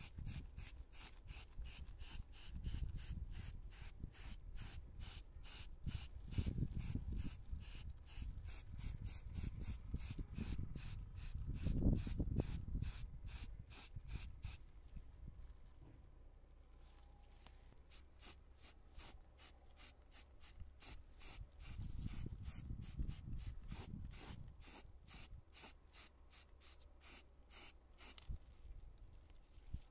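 Repeated rubbing strokes on a part, about two to three a second, with uneven low knocks of handling between them and a short pause about halfway through.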